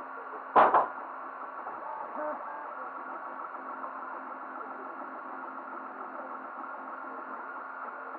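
3D printer running: a steady hiss from its cooling fans, with faint short pitched tones from the stepper motors as the print head moves. A sharp double knock comes about half a second in.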